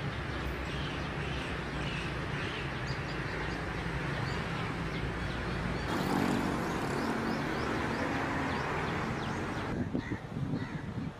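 Outdoor ambience: many birds chirping and calling in quick short notes over a steady rumble of background noise, which changes abruptly about six seconds in and again near the end.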